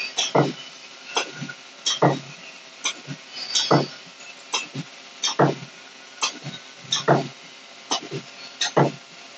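Filter net spot welding machine working through its ring-welding cycle: a sharp thump about every 1.7 seconds, six in all, with lighter clicks between, as it spot-welds its way around the ring.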